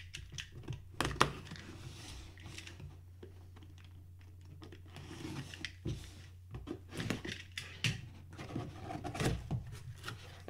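Box cutter slicing the packing tape on a cardboard box, then the flaps being worked open: a sharp click about a second in, scratchy scraping and intermittent cardboard rustling.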